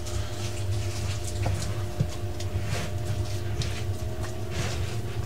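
Spoon stirring thick flour-and-greens dough in a plastic mixing bowl, with scattered light clicks and scrapes of the spoon against the bowl. A steady low hum runs underneath.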